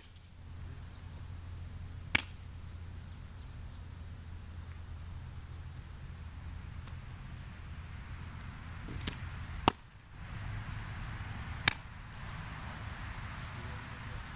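A steady, high-pitched insect chorus, broken by a few sharp smacks of a softball into a leather glove, the loudest about ten seconds in.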